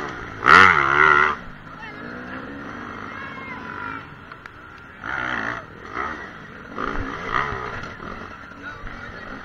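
Dirt bike engine revved hard in short bursts as it is ridden. The loudest burst is about half a second in, with more around five and seven seconds.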